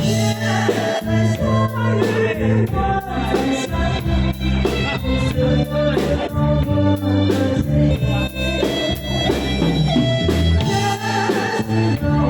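Instrumental backing music for a ballad, with a steady drum beat under an organ-like keyboard melody.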